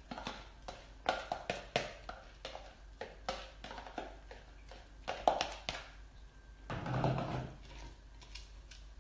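Washed rice tipped from a plastic bowl into a stainless steel stockpot, with a string of light taps and knocks of the bowl and spoon against the pot, and a longer, louder rustle about seven seconds in.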